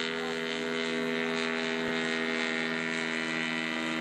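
Engine of a large radio-controlled Piper J-3 Cub model plane running in flight, a steady drone that holds one pitch.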